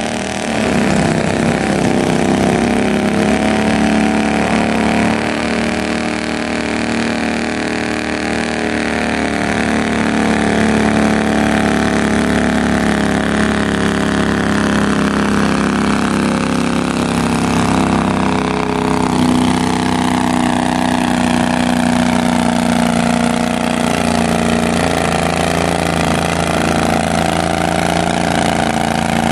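Garden tractor's V-twin engine running steadily under load as it pulls a weight-transfer sled, its pitch drifting slowly up and down.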